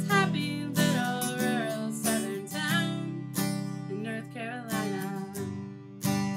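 Acoustic guitar strumming chords while a woman sings a slow folk-style song.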